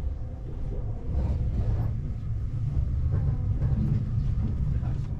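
Low rumble of a train running past a station platform, heard from inside the carriage. It grows somewhat louder about a second in.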